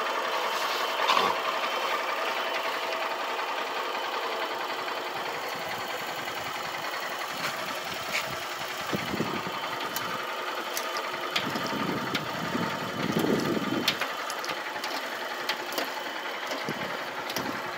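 Motorcycle engine idling steadily, with a few louder, lower sounds about nine seconds in and again around twelve to fourteen seconds.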